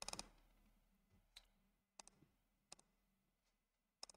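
Faint clicking of a computer mouse. It starts with a quick run of four clicks, then single and paired clicks come about a second apart.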